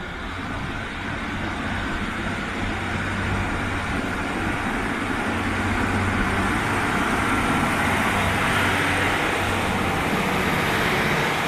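A Northern Class 150 Sprinter diesel multiple unit runs into the platform and passes close by. Its underfloor diesel engine drones steadily under a growing rush of wheel and rail noise, which grows louder until it is loudest near the end as the cars go past.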